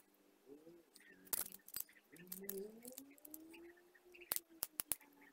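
Light clicks and taps of metal camera-lens parts being handled, the helicoid and aperture housing of a Pentacon 29mm lens, with a quick run of four clicks near the end.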